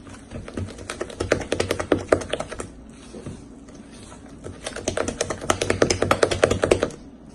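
Cake batter being mixed in a bowl, flour being worked into the wet ingredients. It comes as two bouts of rapid clicking and tapping, each about two and a half seconds long, with a short pause between them.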